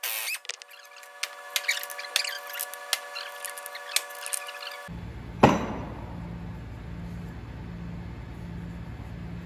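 Metal tools and heavy engine parts clinking and tapping as a MAN D2866 truck diesel is taken apart, over a steady hum. About halfway through, the background turns abruptly into a low steady hum with a slow pulse, and one loud metallic knock follows.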